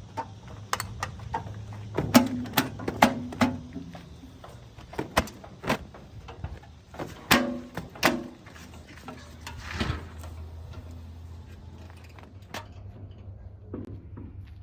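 Diesel engine of a JCB 3DX backhoe loader running low under a long series of sharp metal clanks and knocks, thickest in the first two-thirds and dying out near the end.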